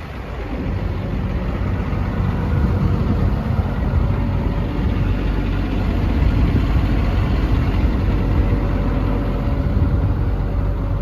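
The Cummins diesel engine of an XCMG XE210CU excavator idling steadily, getting louder over the first couple of seconds and then holding even.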